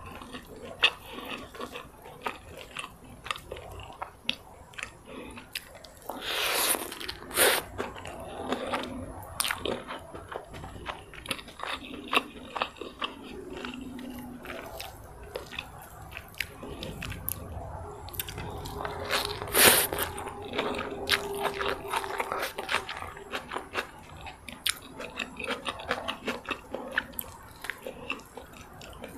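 Close-miked eating: biting, chewing and crunching through fried rice vermicelli with bean sprouts and peanut sauce, with wet mouth clicks throughout and a few louder sharp bursts.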